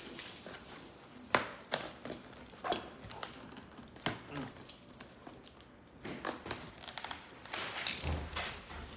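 Box cutter slicing through the packing tape on a cardboard box, with sharp clicks and knocks of the cutter and hands against the box in the first half. About six seconds in comes a longer scratchy stretch of cutting and tearing.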